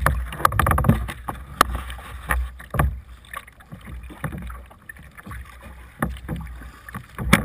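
Kayak paddling into a strong headwind on choppy water: wind buffets the deck-mounted camera's microphone with a steady low rumble, while paddle strokes and small waves splash against the hull. Irregular knocks run throughout, and a sharp one near the end stands out.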